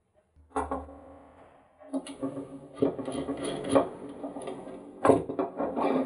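M10 threaded steel rods and nuts being screwed by hand into a hardwood block, with irregular metallic clinks, rattles and scraping of the rods against the wood.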